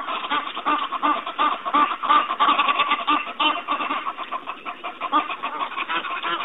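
Animals calling: a dense, continuous chatter of short, rapidly repeated calls, many overlapping.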